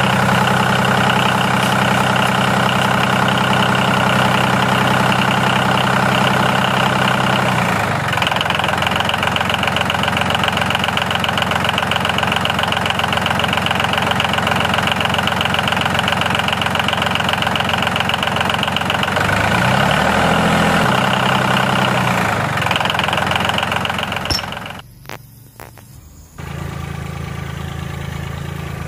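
A motor running steadily with an engine-like hum. About two-thirds of the way through its pitch glides down and back up; near the end it cuts out for a moment after a click and resumes more quietly.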